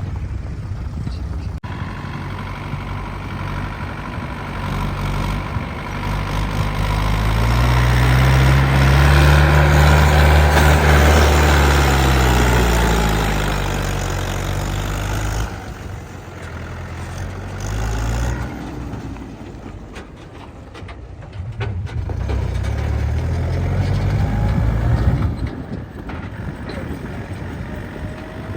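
Heavy diesel machinery engine running under load, revving up and easing back down over several seconds. It drops off suddenly about halfway through and revs up again for a few seconds later on.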